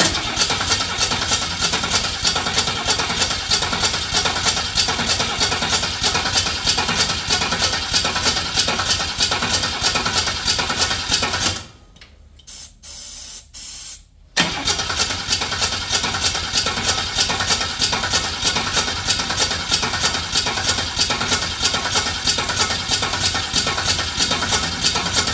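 HQ Holden engine being cranked over on the starter after petrol has been added to prime it, in a long even churn. The cranking stops for about three seconds near the middle, then starts again.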